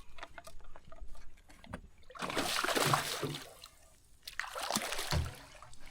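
Water splashing in two bursts, a hooked redfish thrashing at the surface beside the boat, with faint light clicks before.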